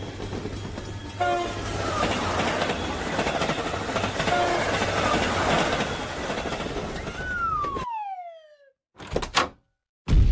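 Moving train: a steady rushing rumble with short horn toots about a second in and again about four seconds in. Near the end a falling whistle glides down, followed by a brief silence and two short sharp sounds.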